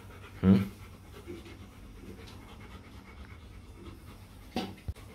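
Rottweiler puppy panting and breathing close up as it is petted. A brief louder sound comes about half a second in, and a sharp click comes near the end.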